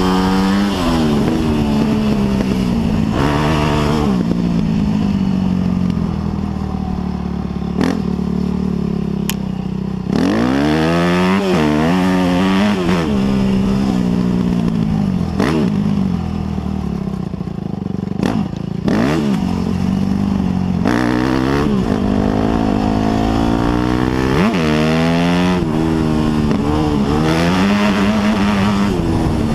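Yamaha YZ250F four-stroke single-cylinder dirt bike engine revving hard and easing off over and over, its pitch climbing in repeated rising sweeps as it accelerates through the gears, with a few sharp knocks.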